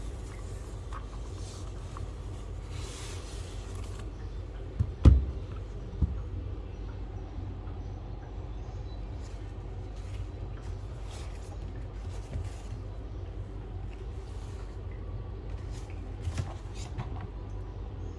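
Handling noise from unboxing a mechanical keyboard: a couple of knocks, the loudest about five seconds in and another a second later, then scattered light clicks, over a steady low hum.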